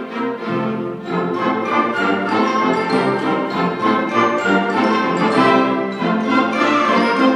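Symphonic concert band of woodwinds and brass playing live, many lines moving at once in quick notes. It thins briefly at the start, then comes in fuller and louder about a second in.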